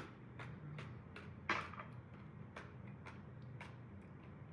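Faint, quick crunchy clicks, roughly two or three a second with one louder crack about one and a half seconds in: passion fruit seeds being chewed while the pulp is tasted.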